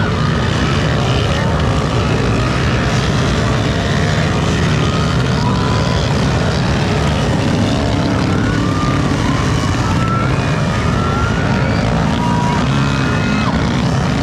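Motocross dirt bike engines revving and shifting as the bikes race around the track, with pitch rising and falling repeatedly.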